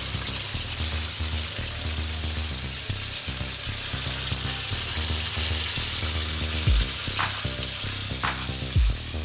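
Food frying in hot oil, a steady sizzle, under background music with a bass line; a few drum hits come in near the end.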